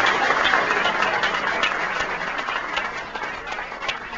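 Audience applauding: a dense patter of clapping that gradually fades, thinning to a few separate claps near the end.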